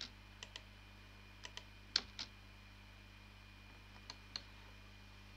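Sharp clicks of a computer mouse and keyboard, about nine in all, several coming in quick pairs, over a faint steady hum.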